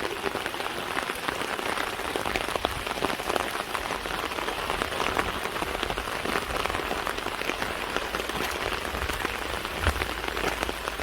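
Steady rain falling, with a dense pattering of individual drops striking a surface. A brief low thud comes about ten seconds in.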